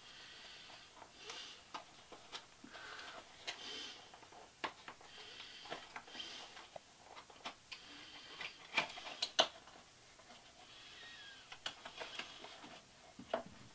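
Packaging of a table-top tripod being handled and opened: soft rustling with scattered clicks and taps, and a cluster of sharper clicks about nine seconds in.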